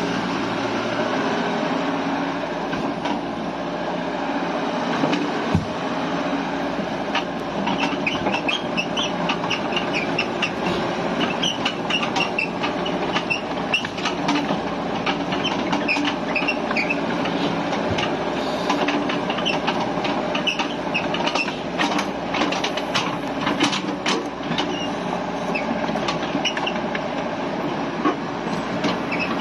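Caterpillar 306 mini excavator working: its engine runs steadily under hydraulic load while its steel parts clank, and from about seven seconds in, many short high-pitched metal squeals join in.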